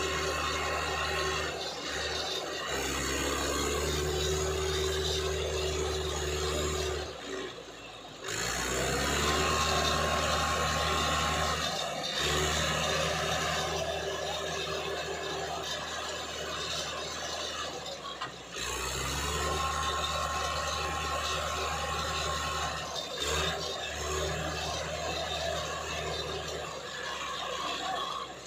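Mahindra 575 DI tractor's four-cylinder diesel engine running hard while hauling a heavily loaded sugarcane trolley, the tractor stuck in cane trash. The engine note sags and climbs back up several times as the driver works the throttle.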